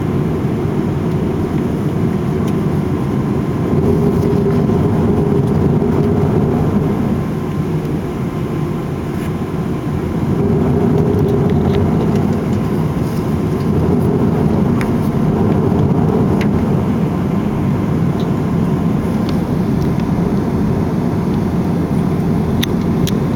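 Steady low rumble inside a jet airliner's cabin on the ground after landing, its engines running at low power, swelling a little louder for a few seconds at a time, with a few faint clicks.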